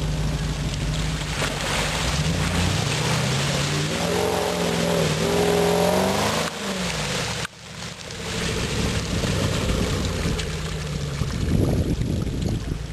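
Classic Range Rover's engine revving under load as the 4x4 climbs out of a water-filled ditch and churns through mud, its pitch climbing and falling with the throttle. The sound drops out suddenly about halfway through, then the engine runs on.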